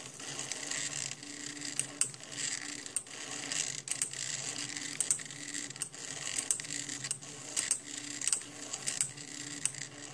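Stepper motors of a homemade mini SCARA pen plotter, run at 12 V in half-step mode, humming in short start-stop moves as the arm traces a grid. Sharp clicks come now and then from its solenoid pen lifter raising and dropping the pen.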